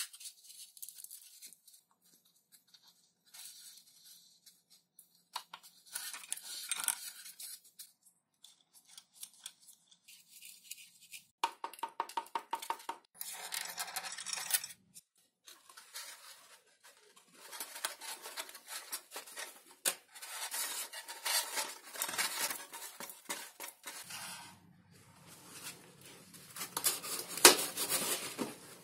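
Hands working XPS foam (Depron) model-plane parts and small plastic control-surface hinges: intermittent foam rubbing and scraping with plastic clicks. A rapid run of clicks comes a little before halfway, and there is a sharper click near the end.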